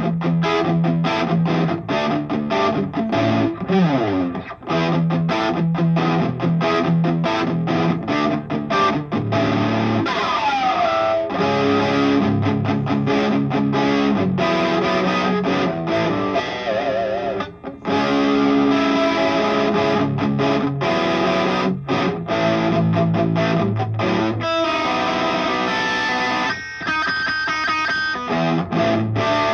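Electric guitar with a humbucker through a Bruce Bennett Brown Sound overdrive pedal, playing a distorted hard-rock riff of fast palm-muted chugs and held chords. There are a couple of pitch slides and a wavering held note, with a brief break just past halfway.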